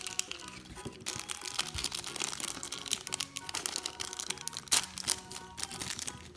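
Plastic wrapping crinkling and crackling as a small toy packet is torn open and handled, over background music.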